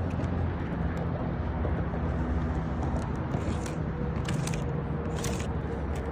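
Steady low engine-like hum with a few short scrapes of a tool working at a nail in an asphalt shingle, the loudest about halfway through and near the end.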